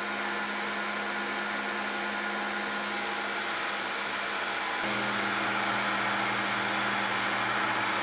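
Belt grinder running steadily while a small mild-steel die is ground to a 45-degree bevel. About five seconds in the steel is pressed to the belt and the sound grows a little louder, with a deeper hum under the grinding hiss.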